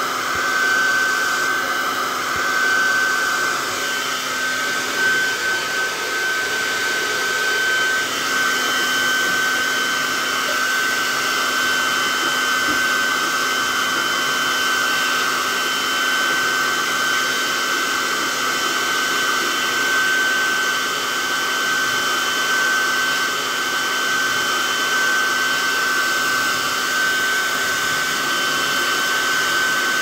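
Hair dryer running steadily: an even rush of blown air with a steady high-pitched whine.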